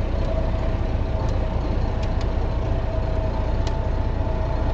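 Farm tractor engine running steadily as it tows a land roller across a pasture, a deep rumble with a steady hum, and a few faint clicks.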